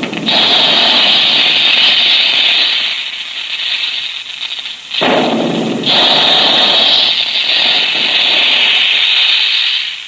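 Radio-drama opening sound effect: a loud, dense crackling rattle in two long stretches, weaker for a couple of seconds in the middle.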